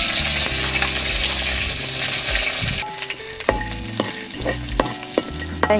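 Pandan and curry leaves sizzling in hot oil in a wok. The loud hiss dies down about three seconds in, and a utensil then scrapes and clicks against the wok as chopped garlic is added and stirred.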